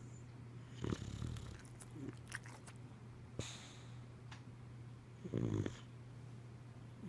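Boxer dog snoring in its sleep: two loud, low snores, one about a second in and a longer one about five and a half seconds in, with fainter breaths between.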